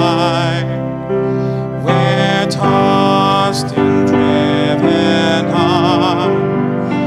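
A hymn sung with instrumental accompaniment: a voice with vibrato holds long notes over steady chords.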